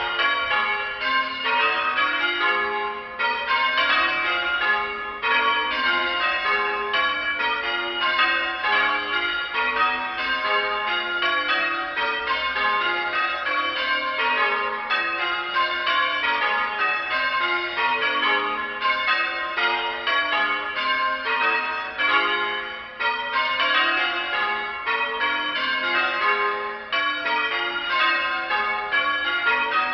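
Church bells in full-circle change ringing: a team ringing the tower bells in steadily shifting sequences, one strike after another in an even, unbroken rhythm. The striking was judged at 44 faults.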